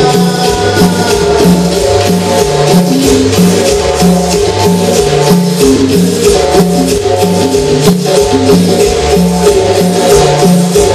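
Cumbia played loud through a sound system: a steady, even beat with a bouncing bass line and sustained notes above it.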